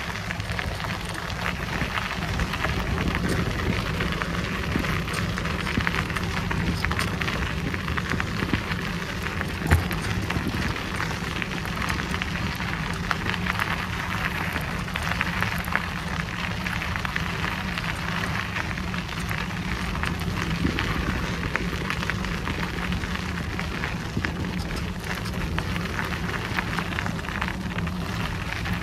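Bicycle tyres rolling over a gravel forest trail, a steady crackling hiss over a low rumble, with one sharp knock about ten seconds in.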